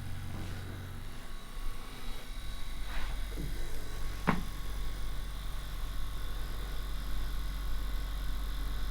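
Steady low hum, with two brief soft sounds about three and four seconds in.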